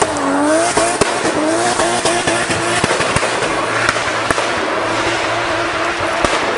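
Nissan Skyline drifting: its engine revs rise and fall with the throttle for the first second or so, over tyre squeal. Then a steady tyre roar takes over, broken by sharp pops every half second or so.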